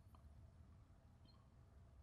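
Near silence: faint background hum with two faint ticks.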